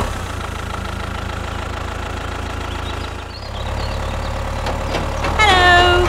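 Tractor engine running steadily, a low rumble with a faint regular pulse. Near the end a short high-pitched cry with a falling pitch sounds over it.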